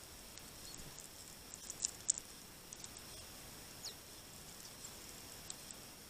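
Great tits feeding at a seed tray: faint, scattered, sharp high ticks of beaks pecking at seed, the two loudest about two seconds in, and one short thin call falling in pitch near the middle.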